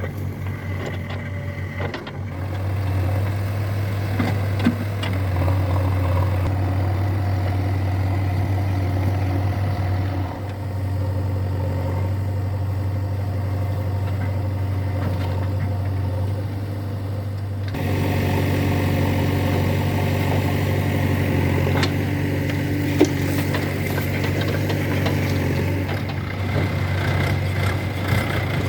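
Diesel engines of earthmoving machinery running steadily. The sound changes abruptly three times, and there is one sharp knock about 23 seconds in.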